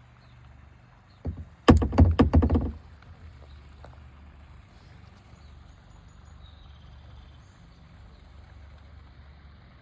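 A quick clatter of hard knocks from a kayak and its paddle, one tap and then about a second of rapid strikes, over a faint low steady background.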